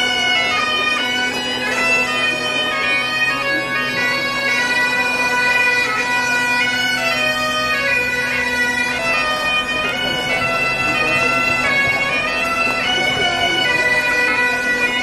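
Great Highland bagpipes playing a march tune, the melody stepping up and down over a steady drone.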